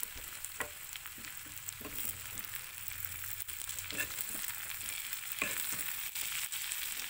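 Maggi noodles and chopped vegetables sizzling in a hot pan while a spatula stirs through them, with scattered clicks and scrapes of the spatula against the pan over a steady hiss.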